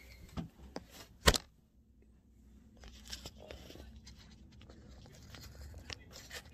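Fabric rustling and scraping as a cotton hoodie is pulled on and adjusted, with a few handling clicks early on and one sharp knock about a second in, the loudest sound.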